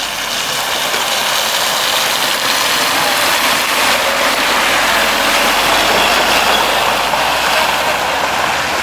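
Heavy vehicle running in the street: a loud, steady rushing noise that swells slightly through the middle and eases near the end.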